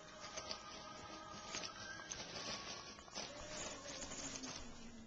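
Kittens scrabbling and pattering on a fabric cat tunnel: a series of light scratches and soft clicks as they move in and around it.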